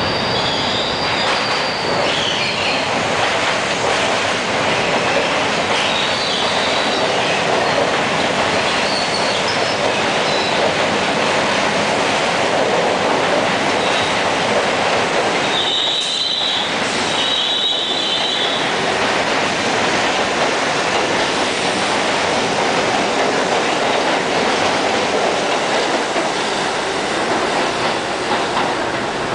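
N train subway cars running past at close range on the steel bridge tracks: a loud, steady rumble of wheels on rail with clickety-clack over the rail joints. Short high-pitched wheel squeals come near the start, again about six seconds in, and twice more, strongest, about sixteen and eighteen seconds in.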